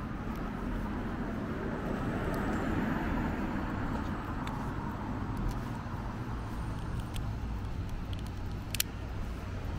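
A car passing on the street: its tyre and engine noise swells to its loudest about two to three seconds in and then fades away, over a steady background of traffic. A few light clicks come near the end.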